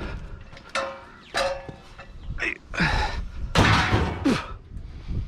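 Several knocks, clunks and scrapes of scrap items being handled and shifted, a few of them ringing briefly. The loudest comes a little past halfway.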